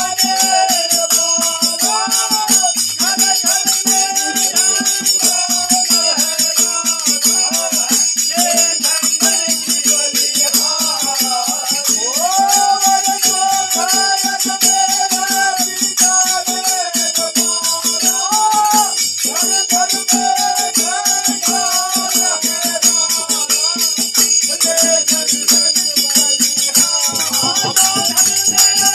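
Men singing a fagua (Holi folk song) together as one melody, accompanied by a dholak barrel drum and small hand cymbals keeping a steady, dense rhythm with a continuous metallic ringing.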